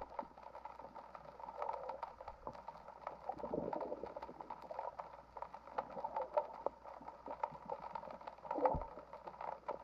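Faint underwater sound picked up by a submerged camera: scattered crackling clicks over a muffled wash of moving water, with a dull knock near the end.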